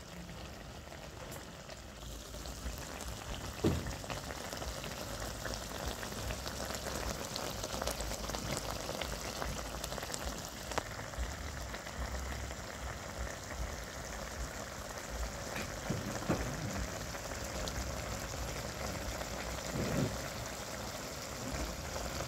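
Frog-and-eggplant stew simmering in a steel wok: a steady bubbling and crackling of the sauce, with a few short low pops.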